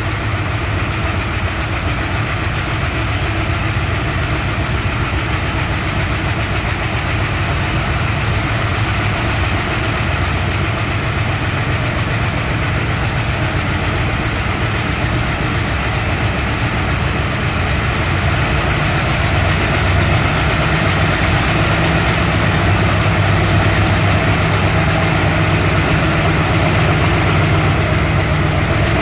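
Alco-built diesel locomotives (M636, C636, M630 and M420) with Alco 251 engines running under heavy load as they struggle to start a very heavy sand train. The engines are running steadily and grow louder about two-thirds of the way through as they throttle up.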